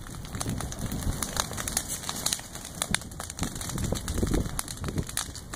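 Dry prairie grass and leaf litter burning: irregular sharp crackles and pops over a low rumble of flames.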